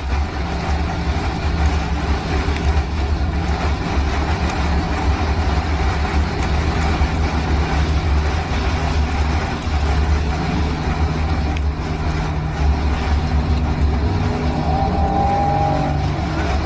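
Strong storm wind buffeting the microphone: a loud, unbroken rumble with a hiss over it.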